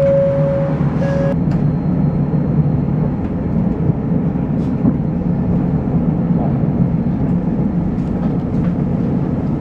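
Inside a tram: a steady electronic beep, the door-closing signal, stops about a second in. The tram then pulls away, its motors and wheels giving a steady low rumble with a faint high whine as it runs along the street.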